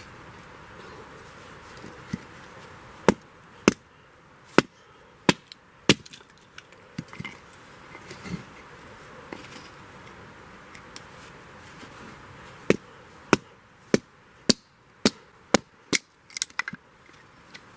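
A blade chopping into wood: sharp knocks in two runs, about five strikes a little under a second apart, then after a pause a quicker run of about nine strikes near the end.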